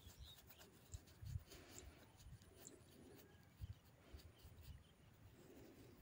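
Very faint clicking and handling noise from a small rechargeable torch's switch being worked on and off repeatedly, to work castor oil into a switch that leaves the light on when switched off.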